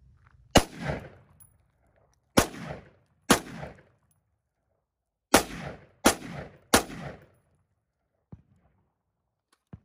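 Six gunshots fired at a cast iron skillet target: one about half a second in, two more about a second apart, then three in quick succession. Each shot is followed by a short echoing tail.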